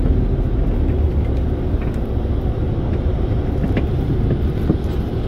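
Low, steady rumble of engine and running gear inside the cabin of a Marcopolo Paradiso G7 1800 DD double-decker coach on a Mercedes-Benz O-500RSD chassis as it moves slowly, with a few faint rattling clicks.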